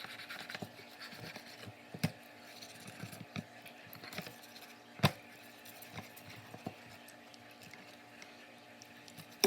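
Knife cutting and scraping along a largemouth bass's backbone while filleting, with scattered sharp knocks, the loudest about two and five seconds in.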